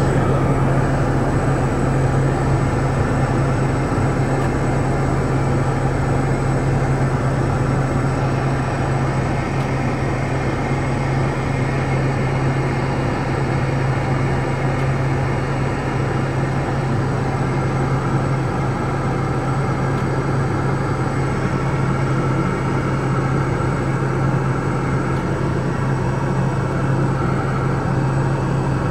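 Cockpit noise of a Piper Meridian in flight: the PT6A turboprop engine and propeller giving a steady low drone over the rush of airflow.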